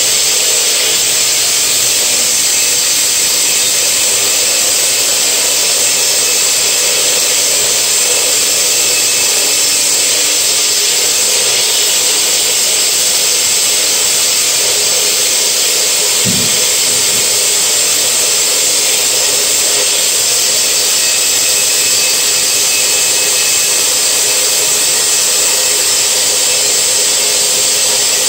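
Husqvarna 110V electric power cutter with a large blade cutting into a concrete wall, running steadily at full speed under load. A brief low knock about halfway through.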